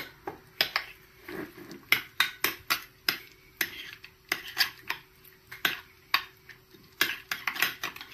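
Metal spoon stirring a thick mayonnaise and dill sauce in a ceramic bowl: irregular clinks and scrapes of the spoon against the bowl's sides, several a second.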